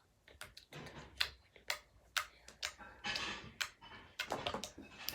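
Slime being squeezed and worked in the hands, giving irregular sharp clicks and crackles with brief squelchy rustles.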